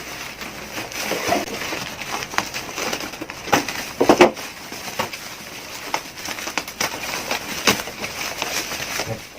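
Packaging being handled and opened by hand: irregular rustling, scraping and light knocks of a box and its wrapping, with a louder burst about four seconds in.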